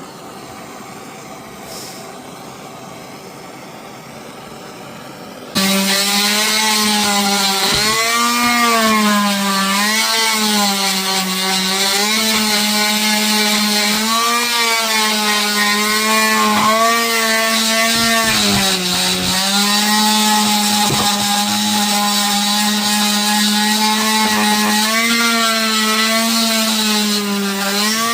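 A steady hiss, then about five seconds in an electric sander starts suddenly and runs loudly for the rest of the time, sanding a wood carving. Its motor pitch sags and recovers over and over as it is pressed into and eased off the wood.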